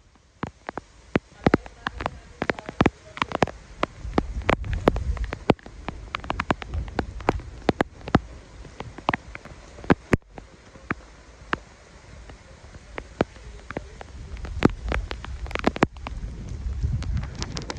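Rain, with many sharp drops striking close to the microphone at an irregular pace, over a low rumble that swells about four seconds in and again near the end.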